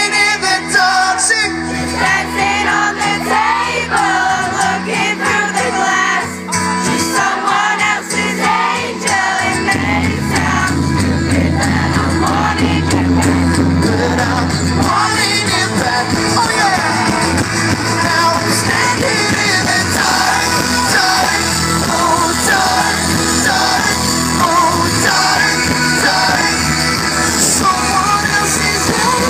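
Live pop-rock band playing with singing and shouts over it, loud and full; the bass fills out about ten seconds in.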